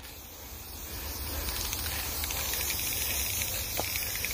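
Aerosol spray-paint can spraying in a steady hiss, building up over the first second and then holding steady, as paint is sprayed onto a carved wooden mushroom.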